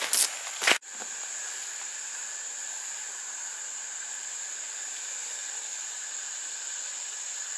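A few footsteps on a dirt forest trail, cut off abruptly under a second in. Then a steady high-pitched insect drone from summer woods, unchanging in level.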